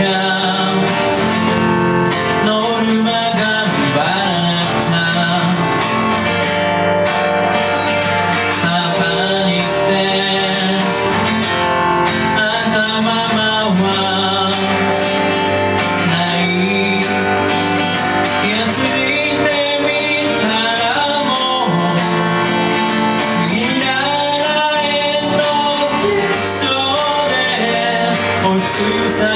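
Live song: a man singing while strumming an acoustic guitar, accompanied on keyboard.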